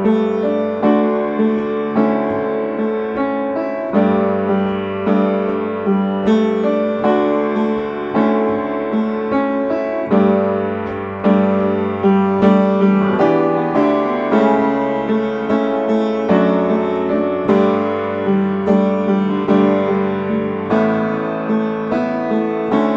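Upright piano playing a simple chord accompaniment with both hands, chords struck and left to ring in a steady rhythm.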